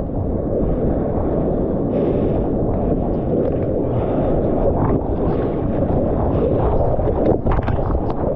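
Ocean water rushing and wind buffeting the microphone of a GoPro carried while surfing: a loud, steady, muffled noise, with a few sharp crackles about seven seconds in.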